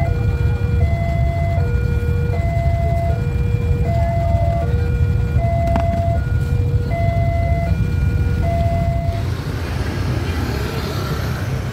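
Two-tone electronic siren-like signal, alternating steadily between a low and a higher pitch about every half second, over a steady low rumble. It cuts off about nine seconds in, and street traffic noise follows.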